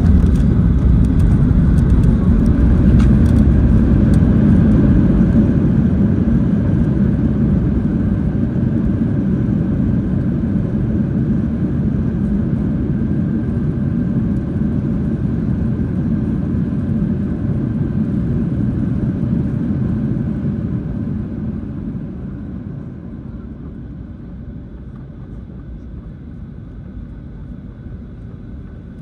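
Cabin noise of a Boeing 737-800 during its landing roll: a loud, steady, low rumble of the CFM56 engines and the wheels on the runway. The noise falls away about 21 seconds in as the jet slows down.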